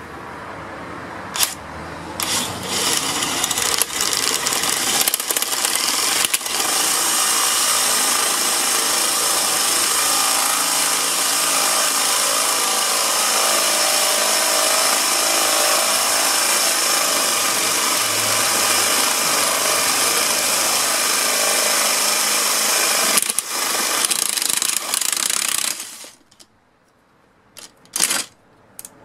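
An impact wrench fitted with a drill chuck and bit, hammering steadily for about twenty seconds and then stopping, followed by a few separate knocks near the end.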